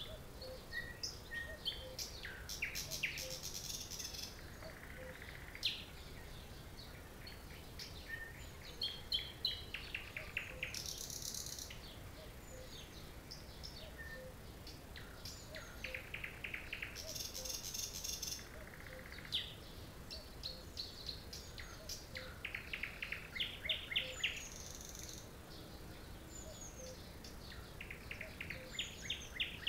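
Nightingale singing: phrases of fast repeated notes and high buzzy trills, each a second or two long and separated by short pauses, with single chirps in between.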